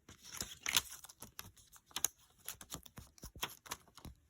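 Plastic Blu-ray case being handled: a run of small, irregular clicks and rustles.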